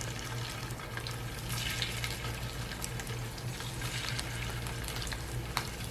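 Bread slices topped with prawn paste sizzling in a little oil in a frying pan, a steady crackle with a few faint taps.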